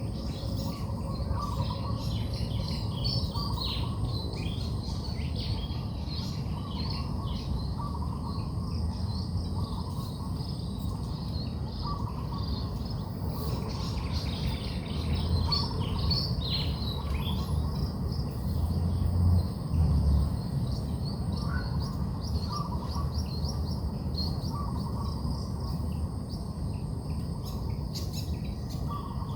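Several birds singing and chirping, with quick high twitters and a repeated lower call note every second or two, over a steady low rumble that swells about two-thirds of the way through.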